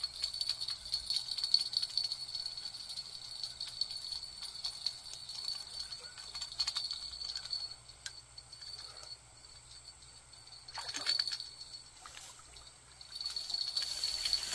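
Insects chirring steadily at a high pitch, fading for several seconds past the middle and coming back near the end, over scattered light clicks. A short rushing noise comes about eleven seconds in.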